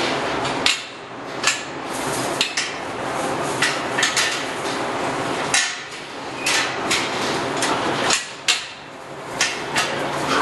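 Galvanized steel sow-stall gates and bars clanking as sows push in and out of the stalls: a dozen or so sharp, irregular metal knocks over a steady rushing barn noise.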